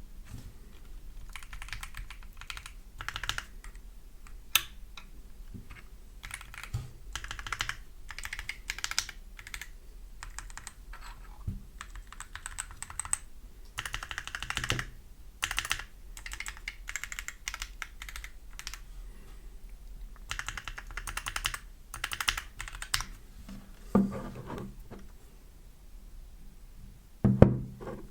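Typing on a Lemokey L1 75% mechanical keyboard: bursts of rapid key clicks with short pauses between them, and a couple of heavier thumps near the end.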